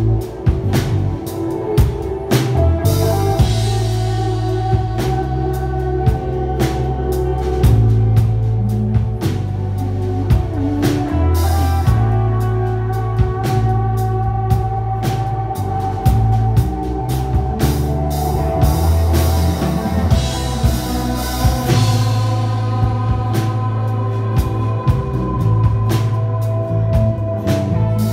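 A live rock band playing: acoustic and electric guitars, an electric bass holding deep sustained notes, and a drum kit keeping a steady beat.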